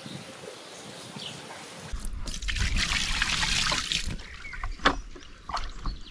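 Water poured from a plastic bucket over a carp lying in a padded unhooking cradle, splashing for about two seconds starting about two seconds in. A few knocks follow, one of them sharp.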